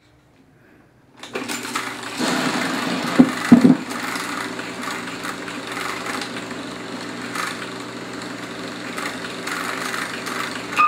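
Film projector running: a steady whirring hum with a rapid mechanical clatter starts about a second in. A couple of louder knocks come around three and a half seconds in, and a brief higher tone sounds near the end.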